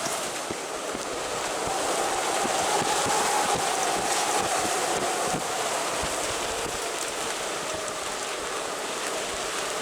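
Strong wind blowing and gusting over the microphone, a steady rushing noise that swells about two seconds in, with a faint wavering whistle through it.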